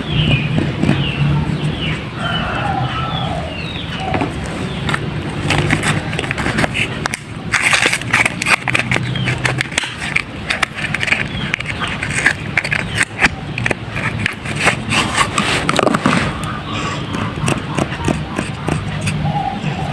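Soaked, mushy soap being lathered and squeezed by hand, giving a dense run of wet crackling and squishing that is busiest in the middle. Birds chirp over a steady low hum.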